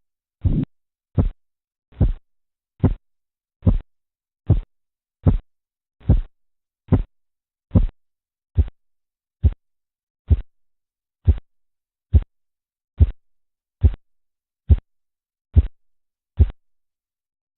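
Korotkoff sounds heard through a stethoscope over the occluded arm artery as the blood pressure cuff deflates: about twenty regular tapping thumps, a little under a second apart. The thumps stop near the end, the disappearance of the sounds that marks the diastolic pressure.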